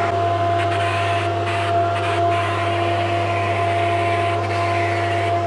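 Spray booth extraction fan running with a steady hum, under the air hiss of an electrostatic powder coating gun spraying powder onto a lawn mower deck.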